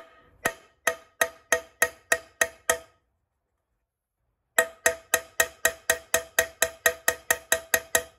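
A small hammer tapping lightly and repeatedly on a metal punch to drive a stuck idler gear shaft out of a Stihl 090 G chainsaw crankcase, each tap ringing briefly. The taps come about three a second, stop for nearly two seconds, then resume faster at about four a second.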